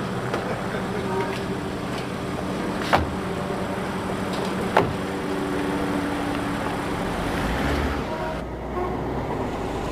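Car engine idling, with two sharp thuds about three and five seconds in, the second as the car door is shut. Near the end a deeper low rumble comes in as the car pulls away.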